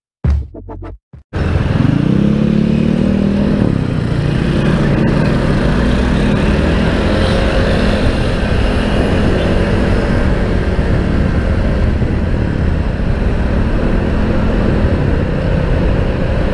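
Motorcycle engine running under way, with steady wind and road noise. Its pitch rises about two seconds in as it accelerates, then holds steady.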